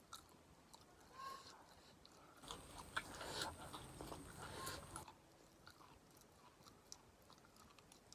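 Close-miked chewing of food, faint, with small wet mouth clicks; it gets louder from about two and a half to five seconds in.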